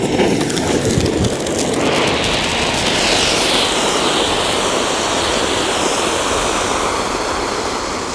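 Clay-shelled flower pot (anar) ground fountain firework spraying sparks with a steady rushing hiss that grows brighter about two seconds in.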